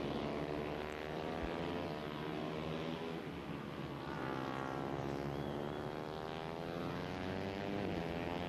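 Moto3 racing motorcycle's 250 cc single-cylinder four-stroke engine running on track, its note falling, then rising again about four seconds in and slowly falling away.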